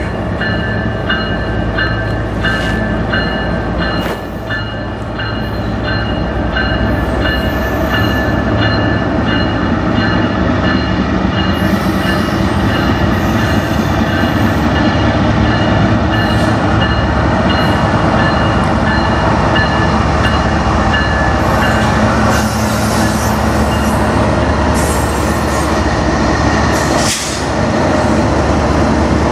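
A bell rings about twice a second as a CN freight train approaches, then the two diesel locomotives pass close by with engines running, followed by the steady rumble of freight cars rolling over the rails.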